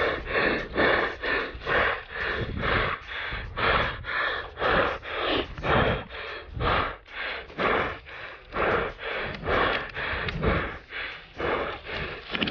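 Heavy, rapid breathing close to the microphone, in quick regular gasps about every half second: a man out of breath from running.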